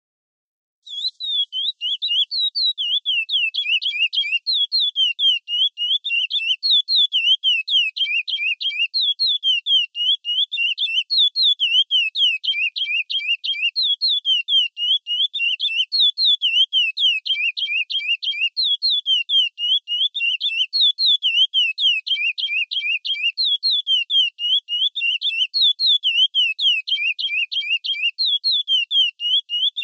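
Chestnut-bellied seed finch (curió) singing the classic 'praia' song: an unbroken run of quick, high whistled notes sweeping down and up, starting about a second in.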